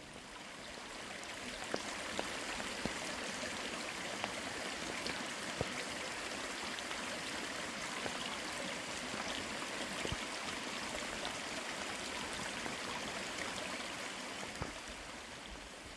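A small rain-fed rivulet running over the forest floor: a steady trickling, splashing rush that fades in over the first second or two, with scattered sharp drips of rain.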